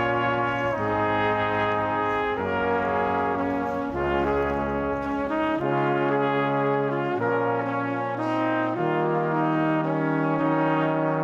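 Background music: sustained brass chords, changing every second or two.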